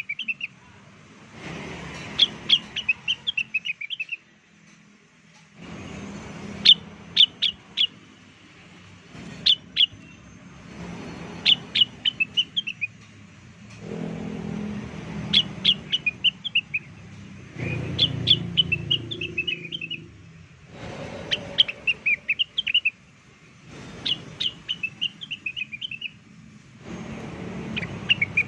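Looped lure recording of a cucak wilis (rengganis) leafbird singing: the same phrase of quick, sharp chirping notes, about two seconds long, repeats every three seconds or so.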